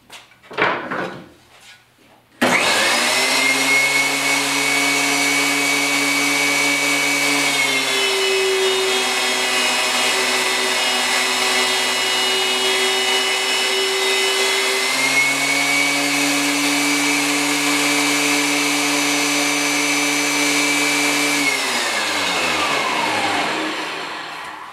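DeWalt DW735 thickness planer with a spiral cutterhead switched on about two and a half seconds in, running with a steady whine. From about eight to fifteen seconds its pitch drops, as a board is fed through and cut, then it comes back up to speed. It is switched off near the end and winds down with a falling whine.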